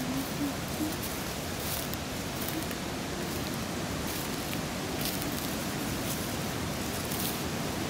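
Steady rushing of a mountain river or stream, an even noise with a few faint ticks.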